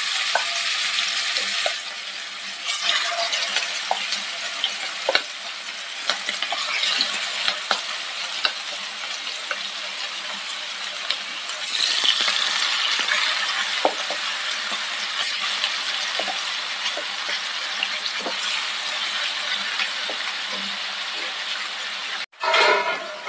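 Marinated chicken pieces frying in hot coconut oil in a pan, a steady sizzle with small pops and spatters as pieces are added. The sizzle swells at the start and again about halfway through, as fresh pieces go into the oil.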